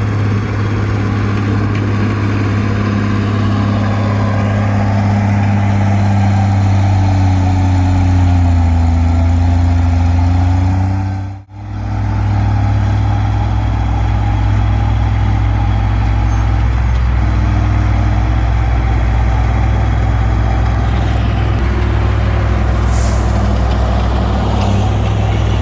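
Komatsu D20P bulldozer's diesel engine running steadily, with a deep low hum; the sound briefly cuts out about halfway through, then carries on.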